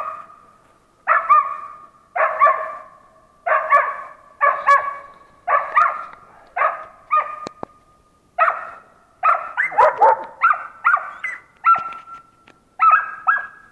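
Hunting laika barking at a marten lodged in a tree: short, sharp barks about one a second, coming faster about nine seconds in. This is the laika's bay at treed game, holding the marten in the tree for the hunter.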